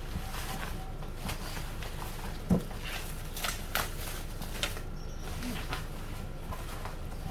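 Cardboard and plastic packaging being handled while an RC car is unboxed: scattered short rustles and clicks, with a louder knock about two and a half seconds in, over a steady low hum.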